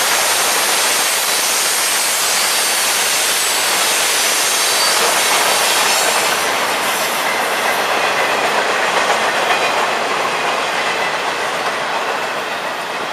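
Florida East Coast freight train cars rolling past close by, their steel wheels running and clattering over the rails in a steady loud rumble. The sound changes about six seconds in, as the hopper cars give way to flatcars carrying highway trailers.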